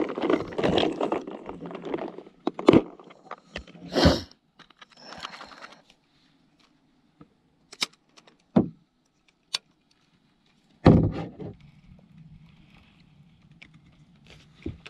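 Gear being handled in a plastic kayak: rustling at first, then a scattering of separate sharp clicks and knocks, with one heavier knock about eleven seconds in.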